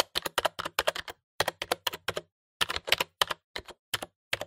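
Keyboard-typing clicks, a quick irregular run of about twenty keystrokes in small groups with brief pauses, added as a sound effect over otherwise dead silence.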